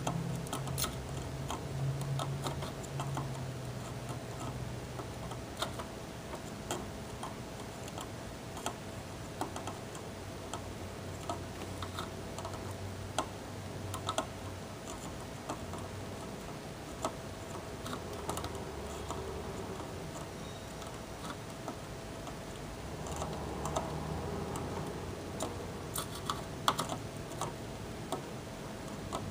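Irregular light clicks and taps of small objects being handled, a few sharper ones near the end, over a faint steady hum.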